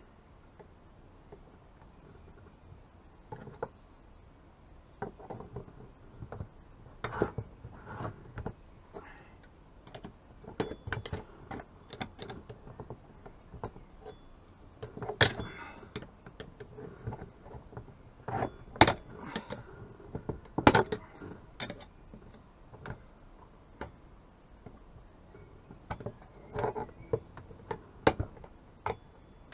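Hand tools clicking, knocking and scraping against a chainsaw being taken apart: irregular taps and clinks, sparse at first, with a few sharper knocks near the middle.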